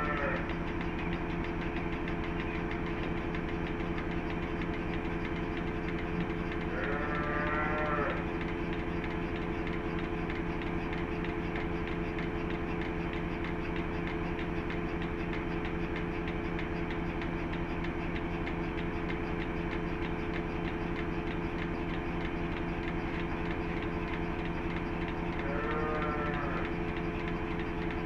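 A motor runs with a steady hum. Three short calls from cattle come over it: one at the start, one about seven seconds in, and one near the end.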